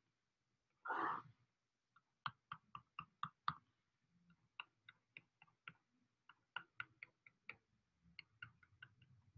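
Faint, quick clicks of a pen stylus on a drawing tablet as short tick marks are drawn, in uneven runs of several a second, after one soft swish about a second in.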